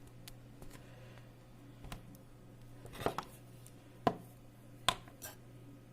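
A handful of sharp light clicks and knocks, about five spread over a few seconds, from hands handling the opened set-top box and its circuit board.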